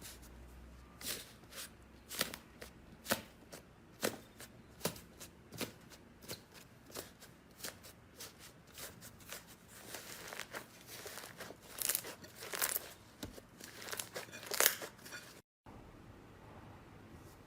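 Slime being handled by hand, making sharp crackling pops about once a second, then a denser run of louder crackles. An abrupt cut near the end leads into quieter handling.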